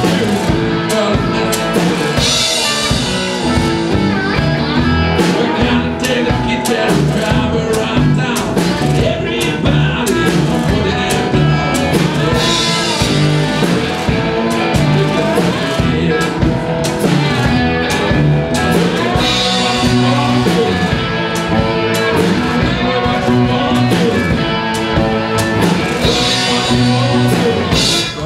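Live blues-rock band playing: drum kit keeping a steady beat under amplified cigar box guitars, with bending slide-like notes.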